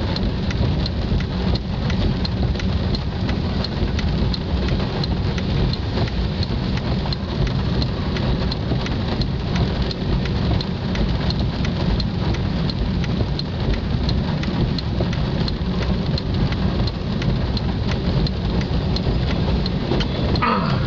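Heavy rain on a car's windshield and roof, heard from inside the car: a steady wash of many small drop hits over a constant low rumble.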